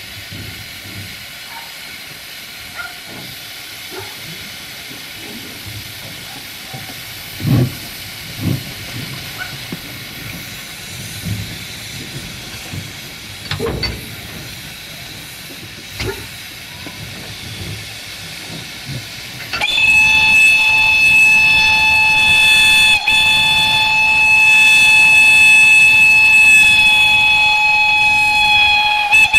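Narrow-gauge steam locomotive 764.431 running, with a steady hiss of escaping steam and occasional knocks. About two-thirds of the way in, its steam whistle starts one long, steady, multi-tone blast, far louder than the hiss, broken only briefly once.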